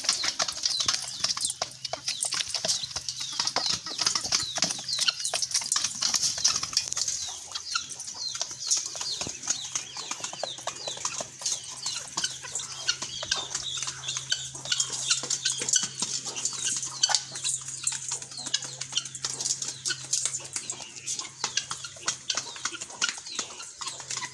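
A flock of chickens clucking as they peck grain from a feed bowl, with many quick taps throughout, over a steady high hiss.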